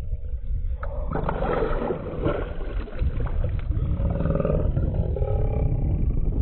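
River water sloshing and splashing against a camera held at the surface by swimmers, over a steady low rumble. The splashing grows busier about a second in.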